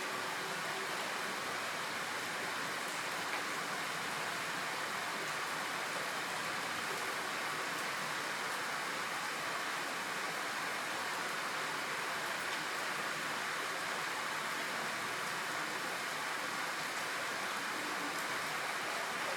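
Steady rain falling, an even hiss without distinct events.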